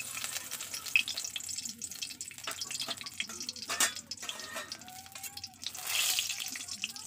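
Bay leaves and dried red chillies frying in hot oil in a steel wok: a steady sizzle with many sharp crackles and pops, growing louder for a moment about six seconds in.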